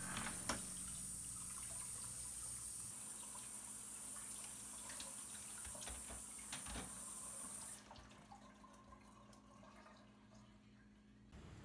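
Kitchen faucet running into a sink as a steady hiss, with a couple of sharp clinks; the water shuts off about two-thirds of the way through, leaving only faint small clicks.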